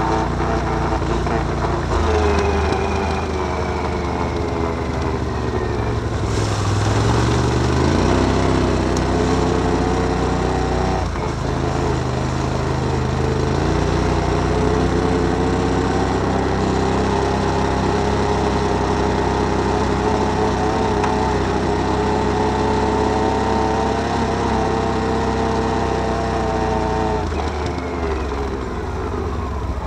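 Can-Am Outlander 1000 ATV's V-twin engine running under way, its pitch dropping and rising several times as the throttle and speed change, with a brief falling whine twice.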